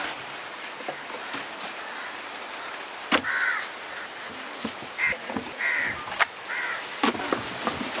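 Crows cawing, about four short caws from a few seconds in, over sharp knocks of a cleaver striking the wooden chopping board as a fish is filleted.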